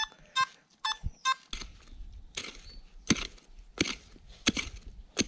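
A metal detector gives four short, evenly pitched beeps over a buried metal target. Then a digging tool strikes into the ground about every 0.7 s, digging the target out.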